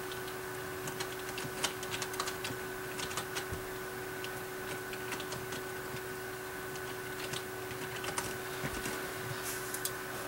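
Scattered light clicks at an uneven pace over a steady electrical hum with two thin, steady tones.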